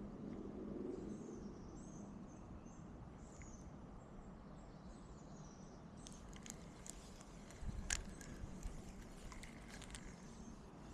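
A small bird chirping in short repeated phrases over faint outdoor background noise. In the second half come scattered clicks and a sharper knock about eight seconds in.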